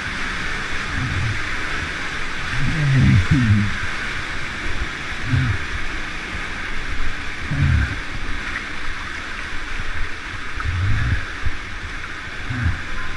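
Steady rush of flowing water in a narrow canyon, with short, low, muffled sloshes every two or three seconds from water moving against the camera at the surface.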